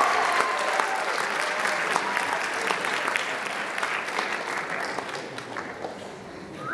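Audience applauding, the clapping thinning out and fading over the last couple of seconds.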